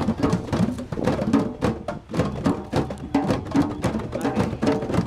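Several djembes played together with bare hands, a fast, dense rhythm of sharp hand strokes and ringing drum tones.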